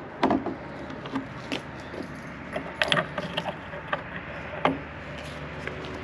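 Irregular knocks, clicks and rattles of an old wooden barn door and its latch being handled, with footsteps on the barn floor. The loudest knocks come just after the start, around three seconds in and near the end.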